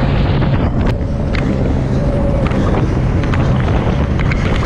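Jet ski running at speed through choppy waves, its engine a steady hum under heavy wind buffeting the microphone, with repeated sharp slaps and splashes as the hull hits the chop.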